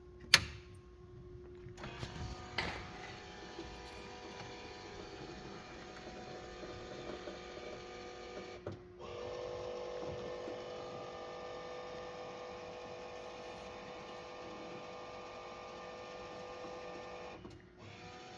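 CEM MARS 5 microwave digestion system powering on: a sharp switch click, then the unit's fan and motors start a steady mechanical hum with several held tones. About nine seconds in, the hum cuts out for a moment and comes back stronger, as at the unit's switching steps.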